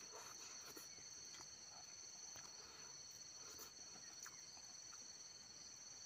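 Faint, steady, high-pitched chorus of insects such as crickets, with a few soft scattered clicks.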